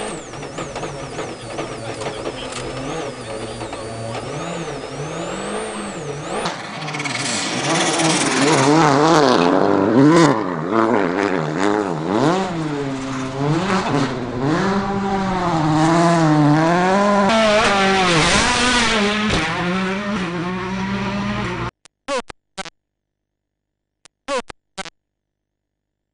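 A World Rally Car's turbocharged four-cylinder engine revving hard, its pitch rising and falling with throttle and gear changes, and growing louder about a quarter of the way in. The sound cuts off suddenly near the end, leaving a few short bursts.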